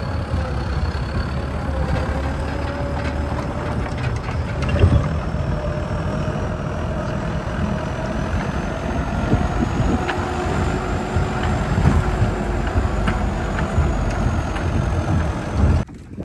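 Massey Ferguson tractor engine running as it pulls a trailer across a field, its pitch rising slowly, with scattered knocks, the loudest about five seconds in. The engine sound drops away abruptly near the end.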